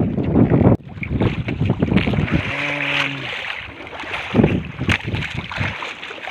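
Wind buffeting the microphone and choppy sea water splashing against a small wooden outrigger boat, with a few sharper splashes. The sound drops suddenly just under a second in, and a short low pitched hum is heard about three seconds in.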